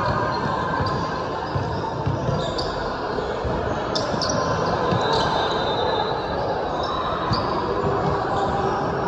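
A basketball bouncing and thudding on a hardwood court, with sneakers squeaking in short high chirps several times, over a steady murmur of spectators echoing in a large gym.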